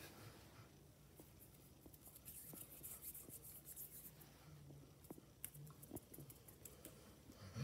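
Faint rustling and scratching of a hand stroking a dog's short fur, with a few soft clicks.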